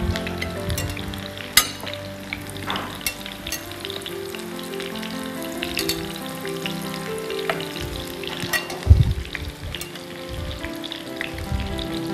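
Flour-and-egg coated chicken fingers frying in vegetable oil in a pan, a steady sizzle, with sharp clicks of metal tongs and a thump about nine seconds in.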